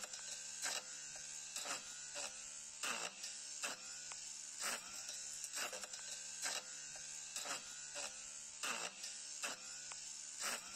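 Battery-operated brush cutter's electric motor running with a faint, steady buzz, broken by irregular short clicks about once or twice a second.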